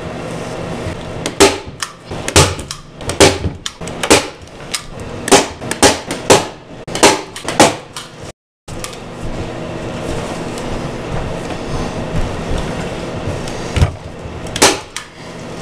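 Staple gun shooting T50 staples through carpet into a tabletop: a quick run of about a dozen sharp snaps, then, after a short break, two more near the end, over a steady low hum.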